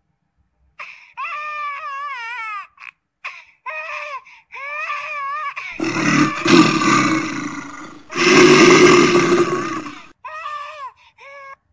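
Baby macaque crying in distress, an infant left behind by its mother. A run of high, wavering whimpering calls gives way in the middle to two long, harsh screams, then a few short whimpers near the end.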